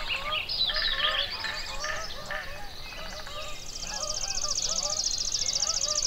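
Mixed chorus of wild birds: many short, repeated calls overlap throughout, with a brief trill about a second in and a long, high, buzzy trill from about halfway on.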